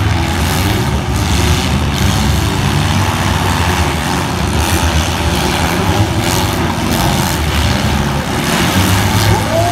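Engines of several four-cylinder demolition derby cars running and revving together, with several sharp bangs of cars hitting each other.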